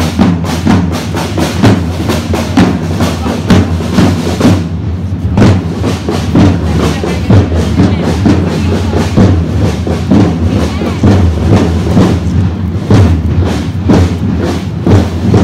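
Marching drums beaten in a steady, rhythmic cadence by costumed drummers leading a historical procession.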